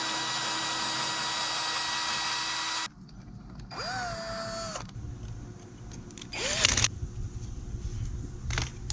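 Cordless drill boring a hole through a metal bracket: a steady whine for about three seconds, then two short bursts as the motor spins up again, the second one the loudest. A brief click comes near the end.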